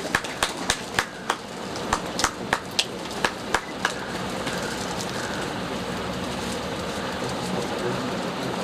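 Scattered hand clapping, a few sharp claps a second, which about four seconds in gives way to a steady, even round of applause.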